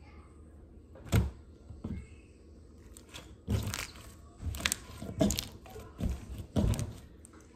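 Clear slime being pressed and slapped against a tabletop by hand, giving about seven sharp, irregular slaps and knocks.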